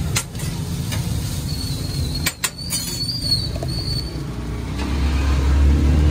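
Steady low rumble of street traffic, with a vehicle engine growing louder near the end. A few sharp clicks sound near the start and again about two seconds in.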